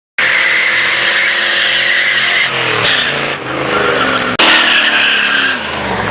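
Car tyres squealing under a hard-revving engine, as in a burnout; the engine note falls twice.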